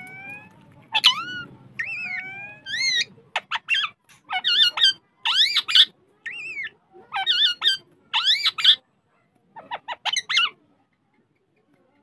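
Rose-ringed parakeet calling: a long run of short, high-pitched calls with sliding pitch, coming in quick bursts until near the end.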